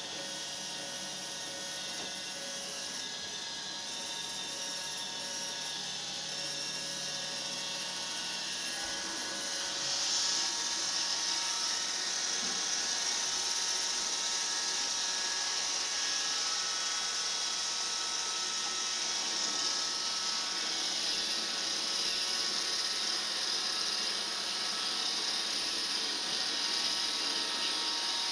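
Roomba robot vacuum running, a steady mechanical whirr of its motor and brushes with a high hiss. It grows louder and hissier about ten seconds in and holds there.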